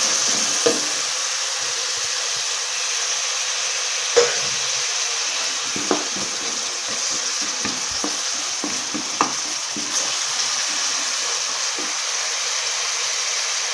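Food sizzling steadily in hot coconut oil in a pan as it is stirred, with the spoon knocking against the pan a few times.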